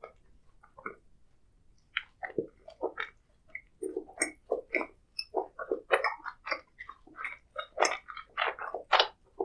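A person chewing food close to the microphone: near quiet for the first two seconds, then a dense, irregular run of chewing and biting clicks.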